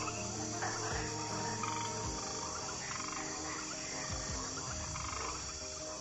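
Tropical forest ambience: a steady high insect drone with scattered frog calls and chirps.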